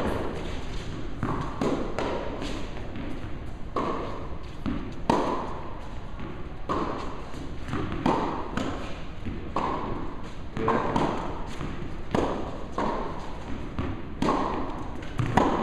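Tennis balls struck by rackets and bouncing on the court as several players rally: an irregular string of pops and thuds, often overlapping.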